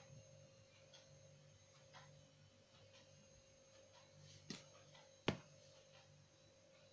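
Near-silent room tone with faint, even ticking about once a second, broken by two sharp clicks about four and a half and five seconds in, the second the louder.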